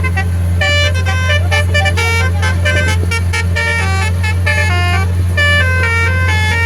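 Basuri telolet horn on a boat playing a quick melody of short stepped horn notes, over the steady low drone of the boat's engine.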